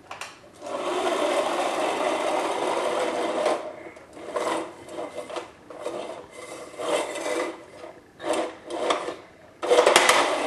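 Plastic toy pickup truck rolling on a hardwood floor, its wheels making a rasping rumble. One long roll starts about half a second in, then come several shorter pushes, and a louder roll near the end.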